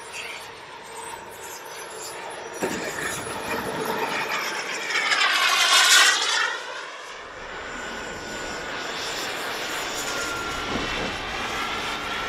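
Small gas-turbine engines of radio-controlled model jets. A twin-engine model jet rolls along the runway, its turbine rush building to a loud peak as it passes close about six seconds in, then falling away. After that a second model jet's turbine runs steadily with a faint thin whine as it touches down.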